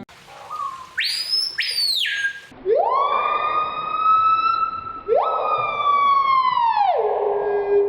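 Siren-like wailing. A high tone jumps in about a second in and drops away, then two slow rising wails each hold steady for a couple of seconds, and the last one falls off near the end.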